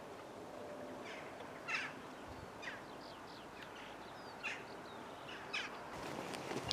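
A flock of corvids calling from a church roof ridge: short, slightly falling calls about once a second, starting about a second in.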